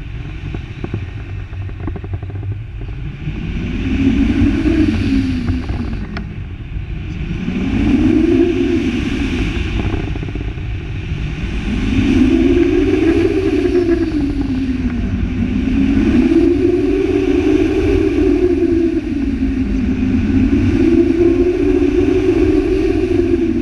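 Wind rushing over the camera microphone as a tandem paraglider turns hard, with a low rumble and a whistling tone that rises and falls in pitch about every four seconds.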